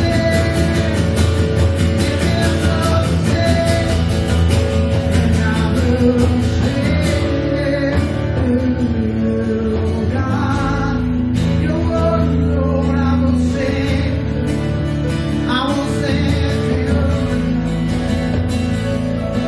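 Live church worship band playing a rock-style song, with guitar and a voice singing at times. Cymbal hits are dense in the first few seconds, then ease off.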